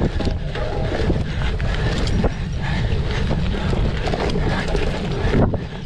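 Wind buffeting the microphone while a cyclocross bike is ridden at race pace over rough ground, with frequent short knocks and rattles.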